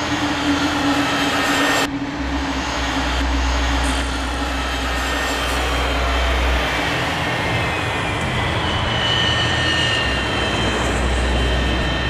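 Jet aircraft engines running at high power for takeoff and climb: a loud, steady noise with faint gliding whine tones over a low rumble.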